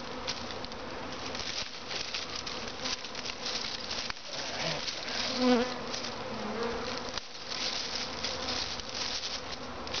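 Honey bee swarm buzzing: a steady hum of many bees, swelling briefly louder about five and a half seconds in.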